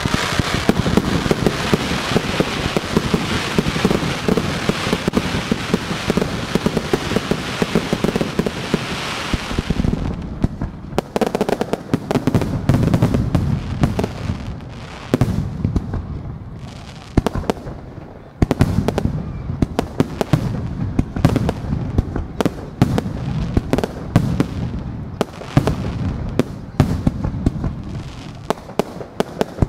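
Fireworks display firing in quick succession: about ten seconds of dense, continuous crackling hiss, then a rapid series of sharp bangs from launches and bursting shells over a low rumble.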